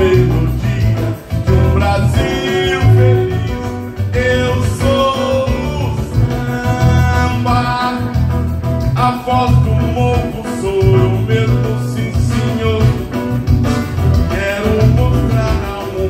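Live band music played through a PA: a man sings into a microphone over keyboard and a steady, pulsing bass beat.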